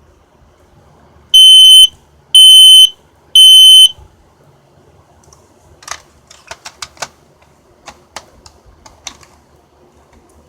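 Kidde P9050 photoelectric smoke alarm sounding three loud, high-pitched beeps about a second apart, the standard three-beep alarm pattern. A run of sharp clicks and taps follows a few seconds later.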